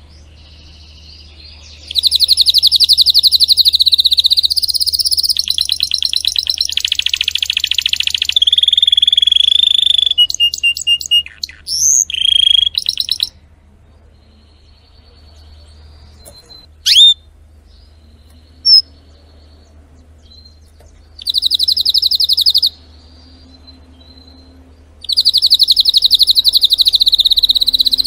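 Domestic canary singing in long, fast trills and rolls, high-pitched. After several phrases the song stops for several seconds, broken only by two short chirps, then starts again with two more trilled phrases near the end.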